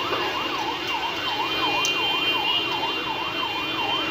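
Electronic siren sounding a fast up-and-down warble, about two and a half sweeps a second, keeping an even level.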